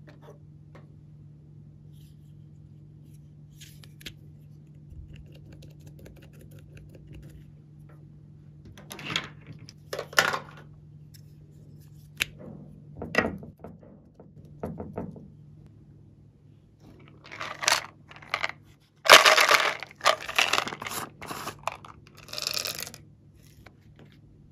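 Plastic squeeze bottles squeezed out onto trays of slime: after a quiet start, a series of short squirting, squelching bursts, the longest and loudest about two-thirds of the way in. A low steady hum runs underneath.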